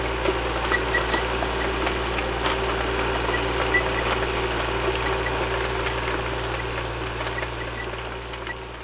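Tank engine sound effect, a steady mechanical rumble with a low hum and scattered clicks, fading away near the end as the tank moves off.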